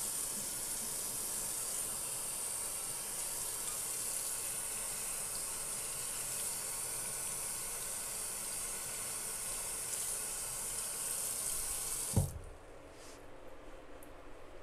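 Bathroom faucet running steadily, water splashing over a tumbler and into the sink as the cup is rinsed. About twelve seconds in, the flow stops suddenly with a short knock.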